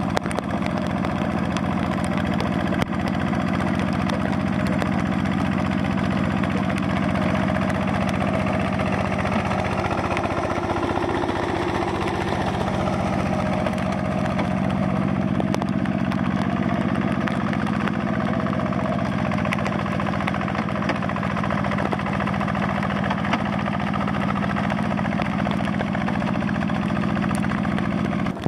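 A hand tractor's single-cylinder diesel engine running steadily as it ploughs a flooded rice paddy.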